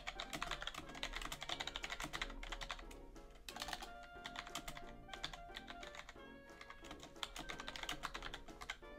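Typing on a computer keyboard: quick runs of keystrokes with short pauses between them, over background music.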